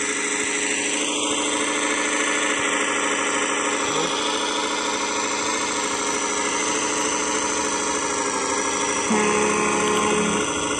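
Handmade radio-controlled model truck running, a steady mechanical drone held at several fixed pitches. A brief extra tone joins for over a second near the end.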